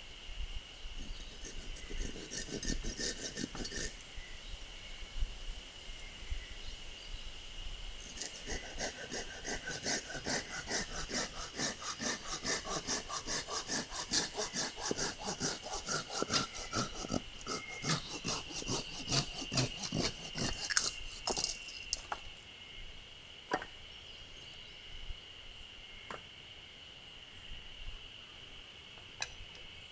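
Hand saw cutting through firewood in quick, even back-and-forth strokes. There is a short spell of sawing, a pause, then a longer spell that stops about 22 seconds in, followed by a few scattered clicks.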